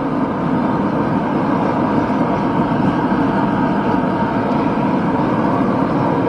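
Backyard knife-making forge running with a loud, steady rushing noise.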